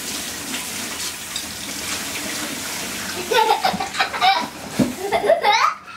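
Steady rush of water running from a tap. From about three seconds in, short high-pitched vocal calls rise and fall over it.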